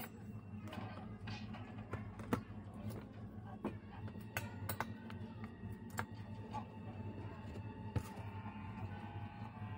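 Small scattered clicks and taps of a screwdriver turning out screws on a graphics card's circuit board, over a steady low hum.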